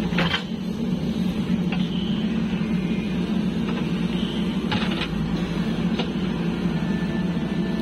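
JCB 3DX backhoe loader's diesel engine running steadily while it dumps soil into a tractor trolley, with a few short knocks.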